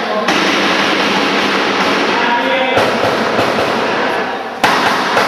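Loud background music, changing abruptly twice as edited sections follow one another.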